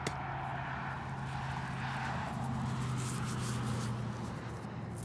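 Vehicle traffic on the highway: a steady low engine hum with tyre noise that swells through the middle and fades near the end. A light click at the very start.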